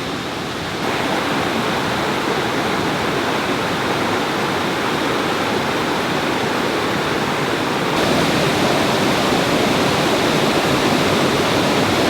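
Steady rush of a waterfall's falling water, a little louder and brighter about a second in and again about two-thirds of the way through.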